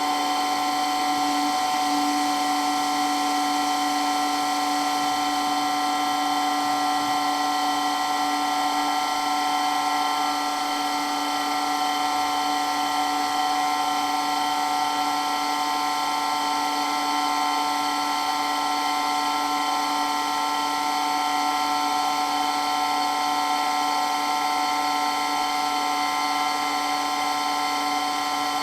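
Electric water pump running steadily, a high whine made of several steady tones over a hiss, with a lower hum that weakens about nine seconds in.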